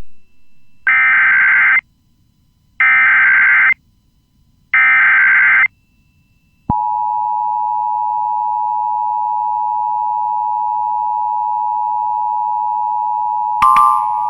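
Emergency Alert System tones opening a Civil Emergency Message. Three short bursts of the SAME digital header data, each just under a second, are followed from about halfway through by the steady two-tone attention signal (853 and 960 Hz).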